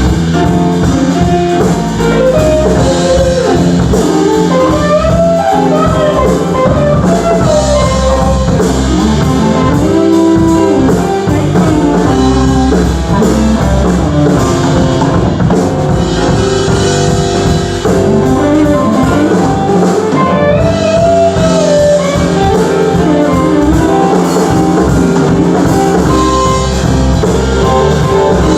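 Live band playing a blues-rock jam: a guitar lead with bending, sliding notes over a drum kit.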